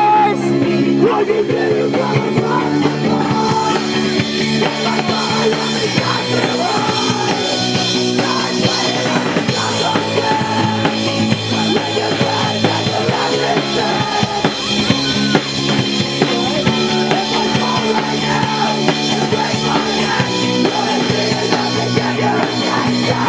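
Live rock band playing loudly, with drum kit, electric guitar and a synthesizer keyboard.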